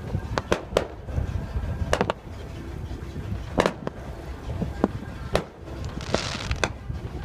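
Fireworks going off: a string of sharp bangs and pops at irregular intervals, with a crackling hiss about six seconds in.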